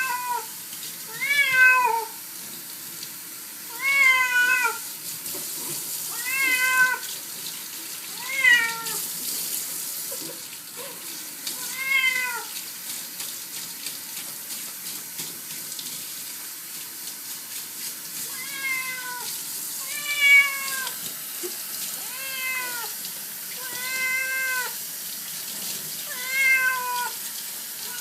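Domestic cat meowing over and over while being bathed, one drawn-out, falling meow about every two seconds with a pause of a few seconds midway, the calls of a cat that is not enjoying the bath. Water runs from a tap underneath as a steady hiss.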